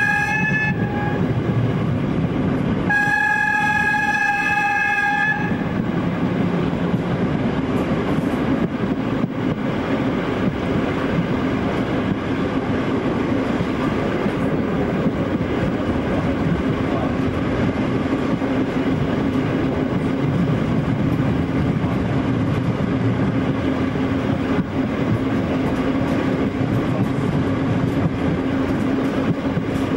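Horn of a V36 diesel locomotive sounding twice: a blast ending about a second in, then a longer one of about two seconds a few seconds later. After that the train runs on steadily, with a low engine drone and wheel and track noise, heard from aboard the train.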